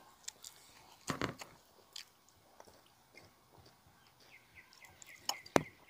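Soft close-up eating sounds from a man eating pork ribs: chewing and lip smacks with a few short sharp clicks, the loudest about a second in. Near the end comes a sip through a straw from a drink that is running out.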